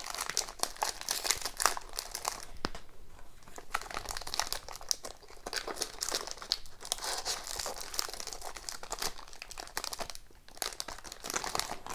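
Plastic wrapper of a hockey card pack crinkling and tearing as it is opened by hand, in many short irregular crackles, with a brief lull about three seconds in.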